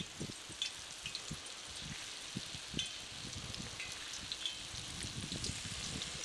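Raw banana slices deep-frying in hot oil in a kadai: a steady sizzle with many small crackles.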